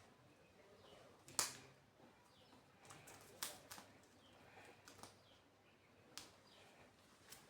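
Faint handling noises from unboxing a vinyl record: scattered sharp clicks and taps of packaging and sleeve being handled. The loudest comes about a second and a half in, with several smaller ones after.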